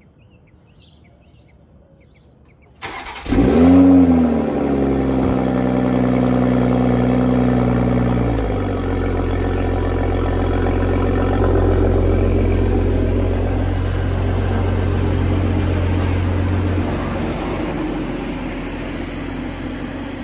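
2022 Toyota GR Supra's B58 turbocharged straight-six starting about three seconds in, with a sharp start-up flare whose pitch rises and falls. It then settles into a high, steady idle that drops to a lower idle about eight seconds in, and fades a little near the end as the car pulls out.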